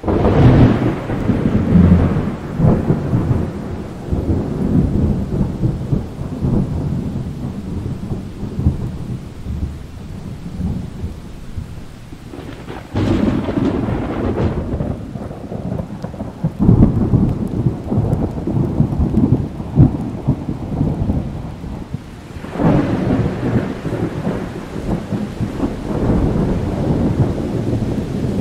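Thunder during a heavy thunderstorm, over steady rain: a sudden loud clap at the start rolls off into a long low rumble. Fresh peals swell up again about halfway through, a few seconds after that, and once more in the last third.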